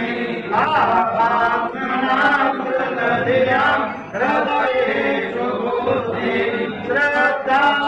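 Several voices chanting together in a sung prayer, with held phrases that rise and fall.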